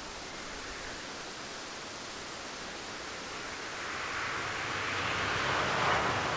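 A steady rushing noise with no tone to it, swelling up from about halfway through and loudest near the end.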